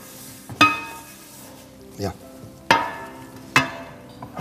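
Metal baking tray being handled and set on a countertop: several sharp clanks, each with a brief metallic ring.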